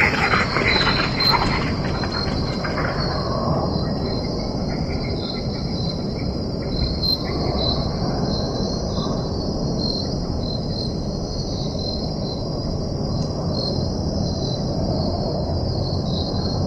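Spooky forest ambience: a steady high-pitched chorus of crickets or other insects over a continuous low rumbling drone. A brighter, noisier sound fades out over the first two or three seconds.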